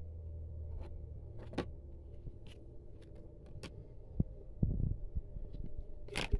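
Hard plastic graded-card slabs being handled and shuffled: scattered light clicks and taps, with a few low thumps a little past the middle, over a low hum that fades early on.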